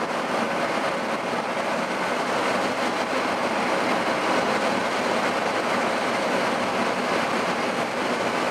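Steady tyre and road noise from a vehicle driving on a wet, slushy road.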